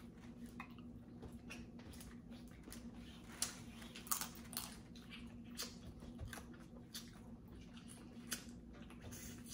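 Faint, scattered snaps and clicks of boiled crawfish shells being cracked and peeled by hand, with some chewing, over a steady low hum.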